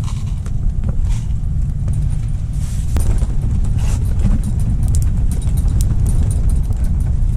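Strong wind buffeting the microphone, a steady loud low rumble, with scattered light ticks above it.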